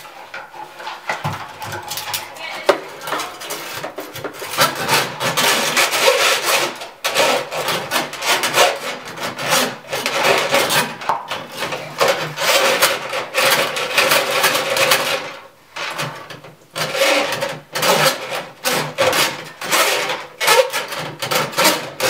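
Homemade zip-tie brush on a hand-cranked drum drain snake scraping and rasping inside a dryer vent pipe as the cable is twisted and forced around the pipe's 90-degree bends. The strokes come quick and irregular, with a short lull about two-thirds of the way through.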